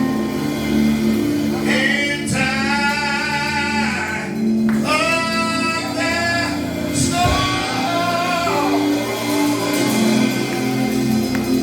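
Gospel worship music: voices singing long, drawn-out phrases over sustained instrumental chords and bass.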